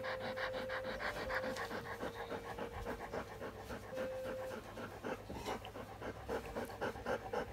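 Rottweiler panting fast and steadily, about five breaths a second: the heavy panting of a bitch in labor.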